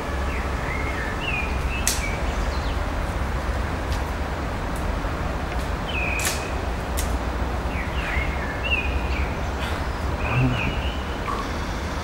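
Small birds chirping in short, scattered calls over a steady low rumble, with a few sharp clicks.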